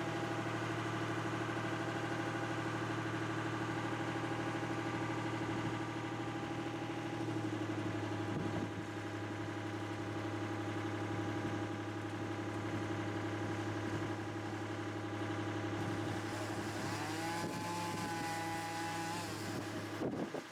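An engine running steadily at idle, with a higher whine that rises and then holds about three-quarters of the way through. It cuts off abruptly at the end.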